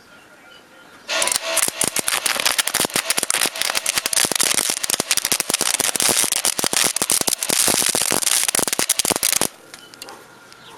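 Electric welding arc crackling steadily for about eight seconds, starting about a second in and cutting off suddenly, as a tack weld is run to get the joint started.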